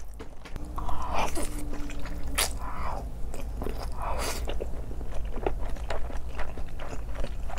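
Close-miked chewing of a mouthful of buldak ssam, spicy stir-fried noodles wrapped in rice paper, with wet, sticky mouth sounds and a few louder smacks.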